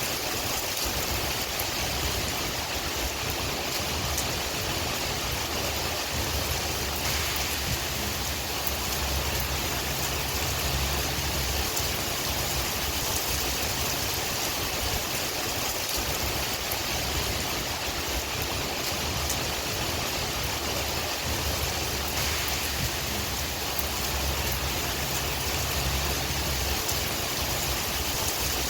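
Steady rain hissing evenly, mixed with a low wind rumble that swells twice and eases again.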